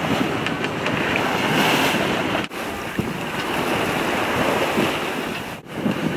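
Wind buffeting the microphone over the rush of sea water past a sailboat under way, broken by two abrupt cuts.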